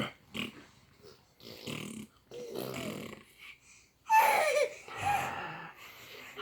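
Babies vocalizing in a string of short, breathy grunting sounds, with a louder call about four seconds in that falls in pitch and another just after five seconds.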